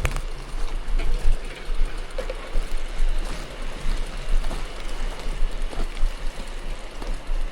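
Mountain bike rolling over a gravel forest road: a steady crunch of tyres on stones, with scattered small clicks and knocks from the bike and a low rumble throughout.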